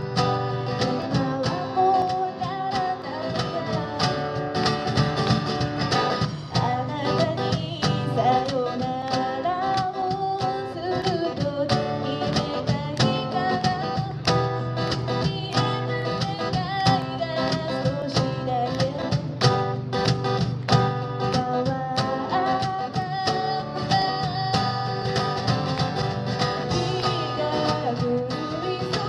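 Live song: singing with guitar accompaniment, steady throughout.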